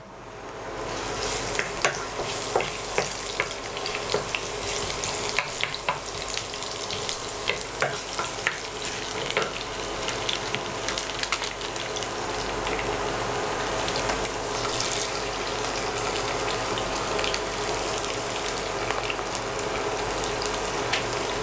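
Sliced garlic sizzling in shallow mustard oil in a pan, with frequent sharp pops and crackles. The sizzle builds up over the first second and turns steadier in the second half.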